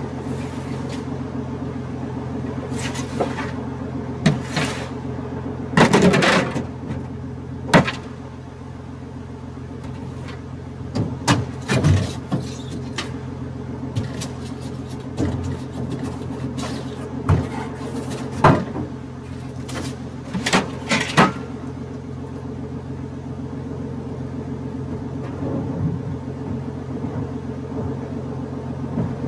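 Old Ford pickup's engine idling steadily, with scattered scrapes and knocks over it, loudest about six and twelve seconds in and again around eighteen to twenty-one seconds.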